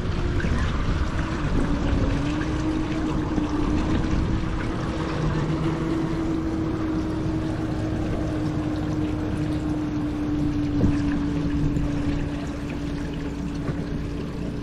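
A boat motor runs steadily at low trolling speed, giving a constant hum whose tone steps up slightly about two seconds in, over a low rumble. One brief knock comes about eleven seconds in.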